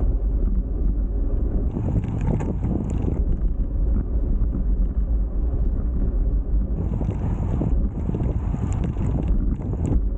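Wind buffeting the microphone of a camera riding along on a road bike: a steady, loud low rumble, with stretches of higher hiss a couple of seconds in and again near the end.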